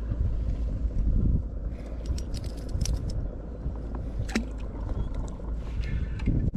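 Low rumble of wind on the microphone and water around a fishing kayak, with scattered small clicks and knocks.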